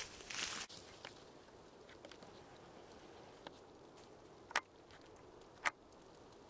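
Faint close-by rustles and small clicks of handling, opening with a brief breathy hiss and ending with two sharper clicks about a second apart.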